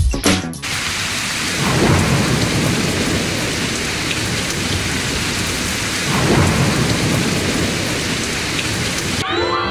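Heavy, steady rain with two low rolls of thunder swelling up, about two seconds in and again about six seconds in.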